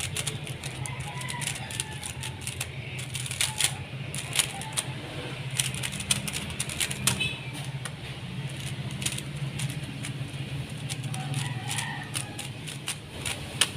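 Rapid, irregular plastic clicking of an RS3M 2020 3x3 speed cube being turned, over a steady low hum.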